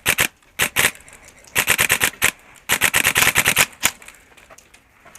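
Airsoft guns firing in rapid bursts, about a dozen sharp shots a second, with short pauses between bursts and a last single shot near the end.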